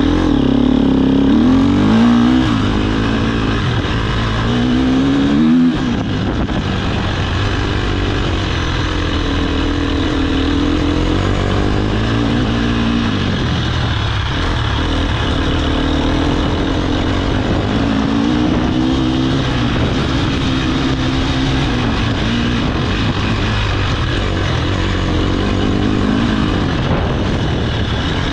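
Enduro motorcycle engine, heard close up from the bike itself, revving up and down through the gears for the first few seconds, with a sudden dip in revs about six seconds in. After that it runs at steadier, moderate revs with gentle rises and falls as it is ridden across rough grass.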